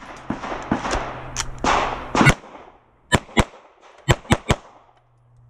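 Semi-automatic pistol firing a string of rapid shots, about nine cracks with a short pause in the middle and a quick run of three near the end.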